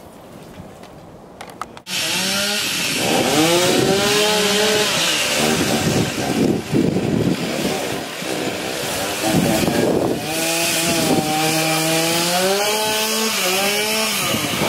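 A two-stroke chainsaw starts suddenly about two seconds in and runs loud. It revs up and down repeatedly as it cuts.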